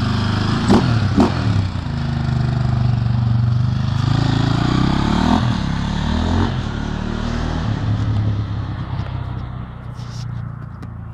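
KTM 525 single-cylinder four-stroke dirt bike engine revving as the bike pulls away, with two sharp throttle blips about a second in, then revs rising and falling as it rides off. The engine fades toward the end as the bike moves away.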